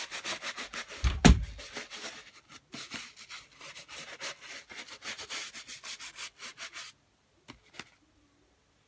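Bristle brush wet with Crep Protect cleaning solution scrubbing a white huarache sneaker in rapid back-and-forth strokes. There is a loud thump about a second in. The scrubbing stops about seven seconds in, followed by two faint clicks.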